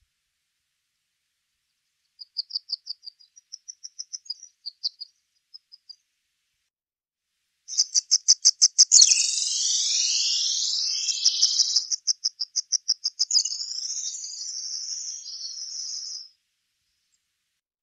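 Peruvian pipit singing. It gives a short run of rapid high notes, then after a pause a longer song of fast repeated notes and trills with falling slurs, lasting about eight seconds.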